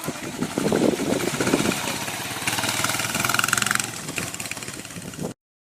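Small motorcycle engine running on an okada motorcycle taxi, swelling and easing in loudness, then cutting off suddenly near the end.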